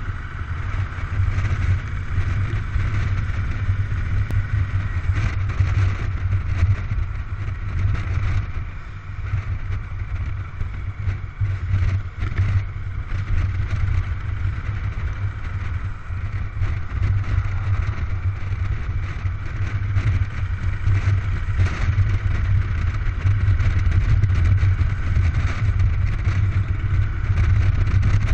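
Cruiser motorcycle's engine running steadily while riding along a road, a low, even engine note with road noise.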